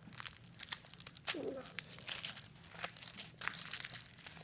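Foil wrapper of a chocolate surprise egg crinkling as it is peeled and handled, in quick irregular crackles.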